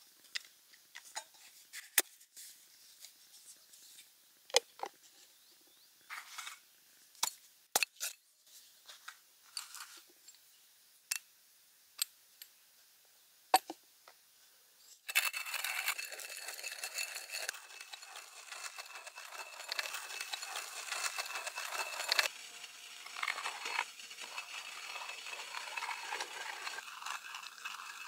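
Hand-cranked coffee grinder crushing beans: a steady gritty grinding that starts suddenly about halfway through, louder for several seconds and then easing off. Before it come scattered light clicks and clinks of metal and plastic gear being handled.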